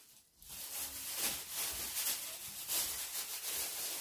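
Handling noise of empty grocery packaging being picked up and moved: faint rustles and light knocks of cardboard boxes and a crisp tube against a hissy background.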